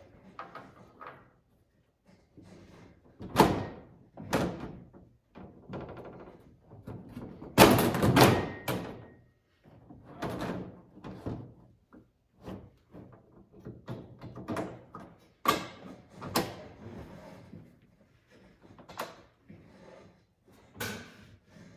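Irregular knocks and thumps as a clear rear window panel is bumped and worked into place against a side-by-side UTV's roll cage. The loudest is a cluster of knocks around eight seconds in.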